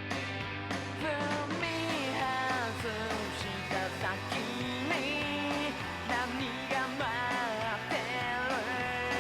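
A pop-rock song with a sung melody over guitar and bass, the episode's ending theme.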